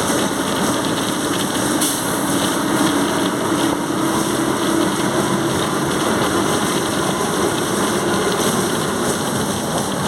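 Volkswagen 17.230 OD bus under way: its diesel engine runs steadily with the transmission growling. A tone in the drive noise climbs slightly around the middle, then settles back.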